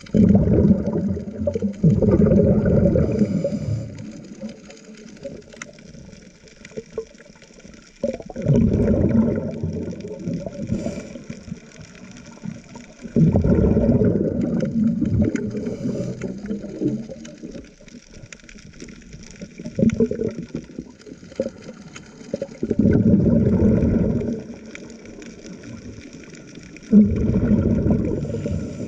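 Underwater bubbling rumble in bursts of a few seconds, each starting suddenly and recurring every five or six seconds, like the exhaled bubbles of a diver breathing.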